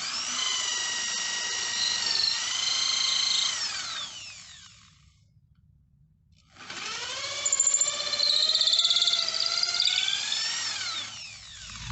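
Hitachi electric drill boring a 29/64-inch hole in a wooden chair leg for a barrel nut. The motor whine winds up, holds for about four seconds and winds down; after a short pause it runs a second time for about five seconds.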